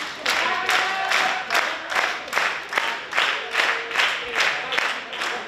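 Wrestling crowd clapping in unison, about two and a half claps a second, with voices calling out over the clapping.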